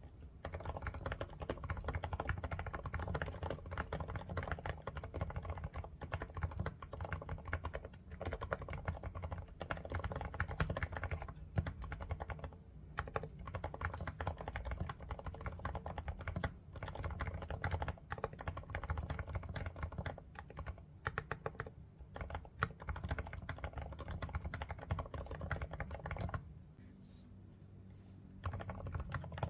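Typing on a Groovestone GS85 mechanical keyboard fitted with low-noise Hanui switches: a quiet, steady run of keystrokes with a few brief breaks and a pause of about two seconds near the end.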